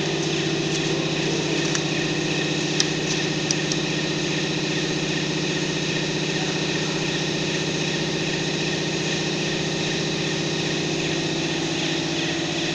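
Steady buzzing hum from the welding equipment, even and unchanging, with a couple of faint clicks about three seconds in.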